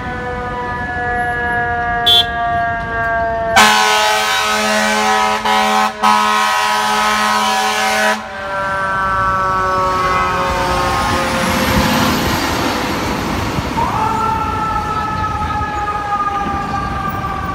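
Fire engine responding: its siren winds slowly down in pitch, then a long air horn blast of about four and a half seconds, briefly broken in the middle, starts about three and a half seconds in. Near the end the siren rises sharply again and then winds slowly down.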